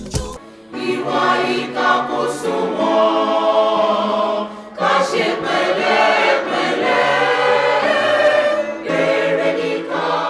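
Choir singing long, held notes in two phrases, with a short break about four and a half seconds in.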